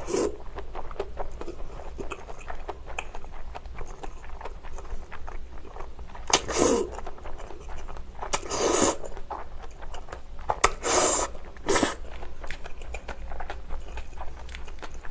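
Close-miked chewing of spicy cold naengmyeon noodles with dense wet mouth clicks, broken by about five short, loud slurps of noodles a few seconds apart.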